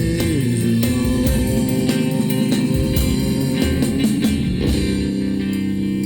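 Live rock band playing an instrumental stretch without singing: guitar and bass tones over sharp percussive hits, with one held note sliding down in pitch just after the start.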